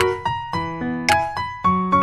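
Background music: a piano-like keyboard melody, with a sharp hit about once a second.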